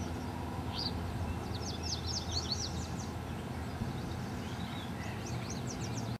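Birds chirping over a steady low outdoor rumble: quick runs of high, falling chirps come about one and a half seconds in and again near the end, with a few single calls between.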